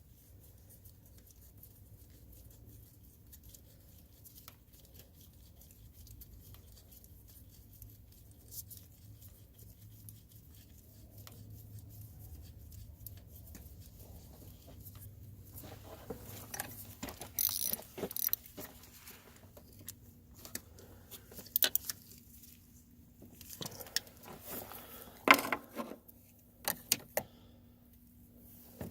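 A faint low hum, then from about halfway on scattered clinks, rattles and knocks, like small metal objects being handled.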